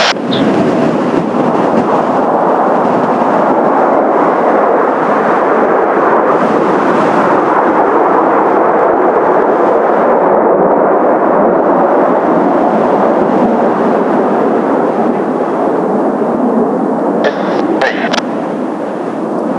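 Kawasaki T-4 jets of the Blue Impulse team roaring overhead in a steady, dense rumble that swells slightly midway. Heavy wind buffets the microphone, with short knocks right at the start and twice near the end.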